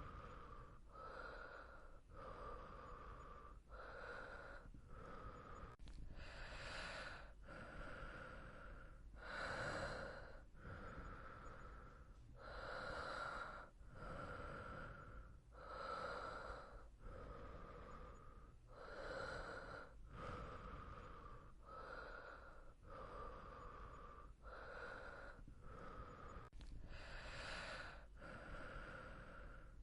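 A sleeping person's soft, steady breathing, quiet inhales and exhales following each other in an even rhythm with short pauses between them.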